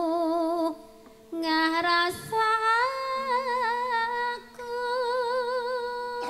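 A sinden, a Javanese female vocalist, sings a slow, melismatic line through a microphone, holding long notes with wide vibrato. She breaks off briefly about a second in, then sings on.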